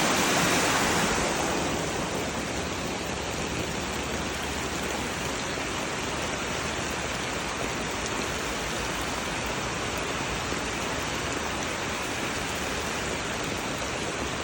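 Heavy floodwater rushing from an overwhelmed storm drain and along the street, a steady roar that eases slightly after the first second or two.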